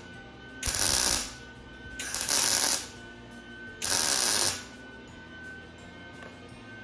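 Arc welder laying three short tack welds on a steel seat-frame, each a crackling burst of under a second, about a second and a half apart.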